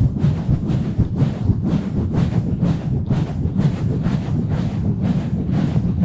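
Fast, rough hand strokes right on a bare microphone, cupped-hand pumping and rubbing that give quick muffled strokes of about three to four a second.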